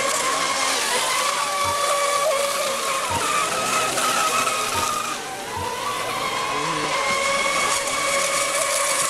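RC racing monohull boats running at speed, their motors giving a high-pitched whine that wavers and glides in pitch as they corner, over the hiss of spray off the water. The sound dips briefly about five seconds in.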